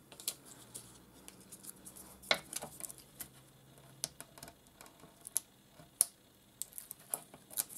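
Fingers handling small pieces of card and paper: scattered soft ticks and rustles, with several sharper clicks spread through.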